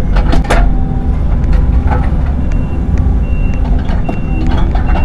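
Heavy machine engine running steadily during excavator concrete demolition, with a few sharp knocks in the first half second. Near the end, a reversing alarm beeps about three times.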